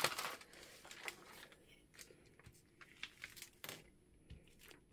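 Faint paper handling: a sheet of book-page paper rustles loudly as it is lifted at the start, then a glue stick is rubbed over the paper in short strokes, with small rustles and taps.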